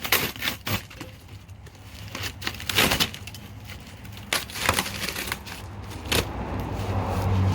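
Smoker parts and cardboard packing being handled and pulled out of a shipping box: a string of irregular knocks, scrapes and crinkles.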